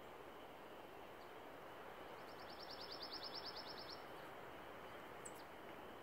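A songbird's trill: one level run of rapid, evenly spaced high notes lasting about two seconds. A single short high chip follows near the end, over a faint steady outdoor hiss.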